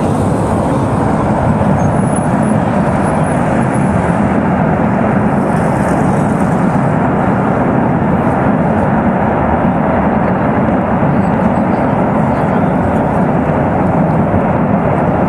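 Steady jet-like roar of natural gas burning as it escapes from a ruptured high-pressure gas pipeline, unbroken throughout.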